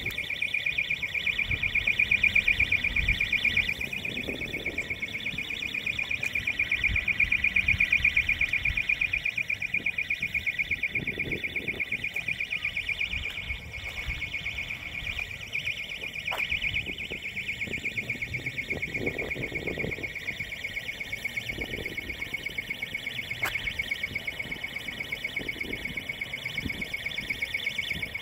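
An alarm sounding continuously as a high-pitched, rapidly pulsing tone that never stops, with low rumbling underneath.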